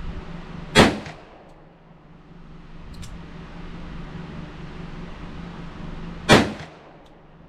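Two shots from a Smith & Wesson Model 625-4 .45 ACP revolver, about five and a half seconds apart, each a sharp crack with a short ringing tail.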